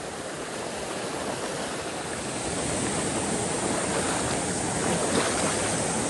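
Mountain stream water rushing over rocks, a steady hiss that grows louder over the first few seconds and then holds.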